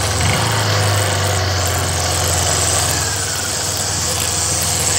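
Motorcycle engine running steadily while riding: a low, even hum with a constant hiss over it.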